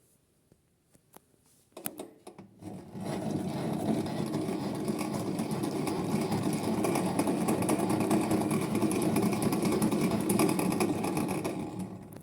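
Small electric motor of a toy twin tub washing machine spinning its spin-dryer drum. After a few clicks it starts about three seconds in, runs steadily with a rattly whir, and stops near the end.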